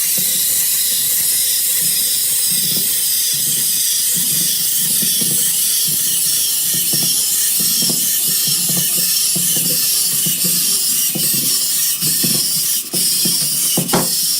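A steady, loud hiss, with an irregular low rumbling and a few sharp clicks underneath.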